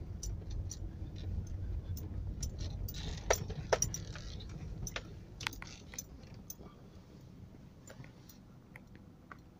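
Inside a vehicle on a bumpy sand track: low rumble of the vehicle moving, with clicks and rattles in the cabin, the sharpest two about three and a half seconds in. The rumble fades as the vehicle rolls to a stop.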